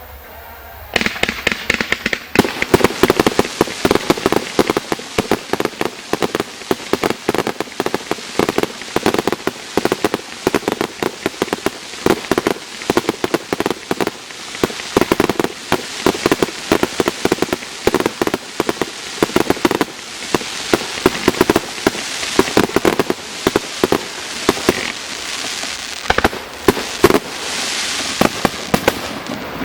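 Fireworks going off in a rapid, dense barrage of sharp bangs and crackles, several a second, starting suddenly about a second in.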